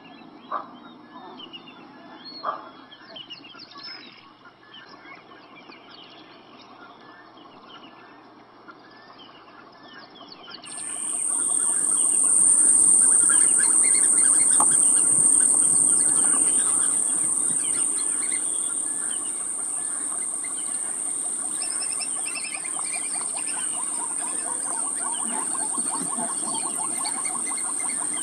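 Birds chirping, then from about ten seconds in a loud, steady, high-pitched insect drone. Underneath is a dense patter of small live fish flapping and splashing in a shallow net.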